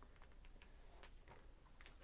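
Near silence: faint room tone with a few scattered, light clicks.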